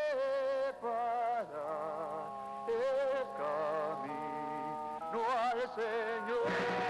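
Show music from a stage musical: a sung melody of long held notes, several wavering with vibrato, over a sustained accompaniment, with the pitch moving every second or so. Near the end a layer of noise joins in.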